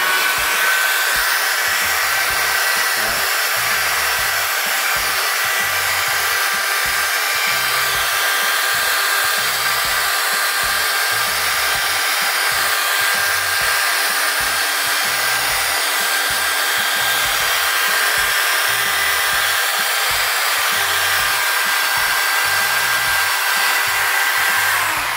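Corded electric hand drill mounted in a drill-press stand, running steadily at high speed with a whine while it bores holes into a thin wooden block.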